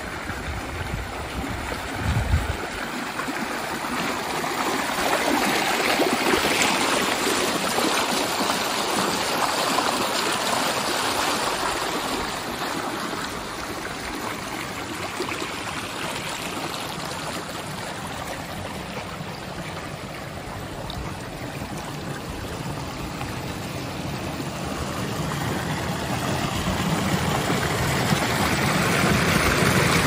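Water running and gurgling along a stone- and concrete-lined irrigation channel, growing louder near the end where it rushes white down a steeper stretch.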